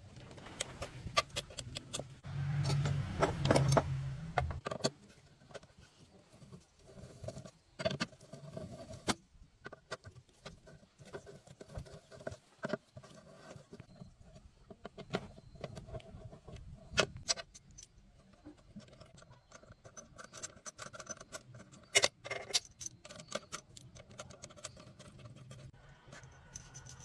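Irregular small clicks and light metallic clinks, as of tools and metal parts being handled during a repair. A louder low hum runs from about two seconds in and stops around four and a half seconds.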